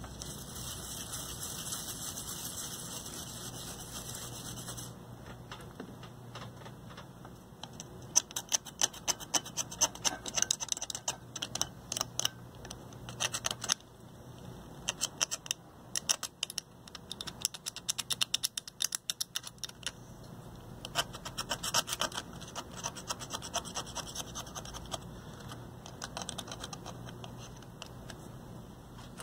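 Toothbrush bristles scrubbing corrosion off a circuit board: a steady hiss at first, then runs of quick back-and-forth scratchy strokes.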